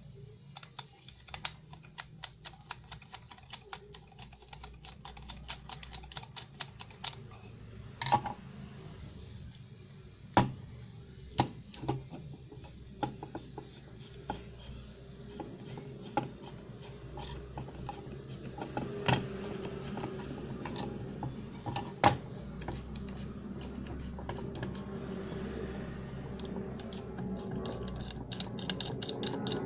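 Rapid small clicks and taps of tools and small parts being handled during repair work on a CNC 3018 engraver's Z axis, with a few sharper knocks. A low hum grows louder in the second half.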